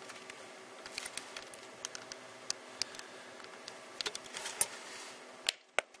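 Clear plastic clamshell packaging of an Intel Xeon CPU being handled and pried open: scattered crinkles and sharp clicks, with a few louder snaps near the end.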